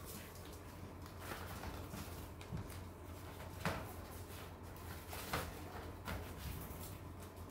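Yorkie puppies moving about in a wire dog crate lined with newspaper: light rustling of paper and a handful of short clicks and knocks, the sharpest about three and a half seconds in.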